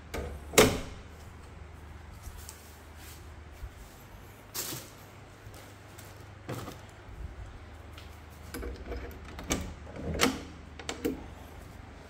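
Scattered sharp knocks and clacks of a steel door's mortise lock hardware and tools being handled: one loud knock about half a second in, single ones about four and a half and six and a half seconds in, and a run of clacks near the end.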